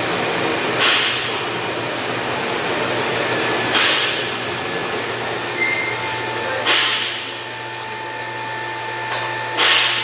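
Steady workshop background noise with a low hum, broken by four short knocks or clatters, about three seconds apart, as parts and tools are handled in the engine bay.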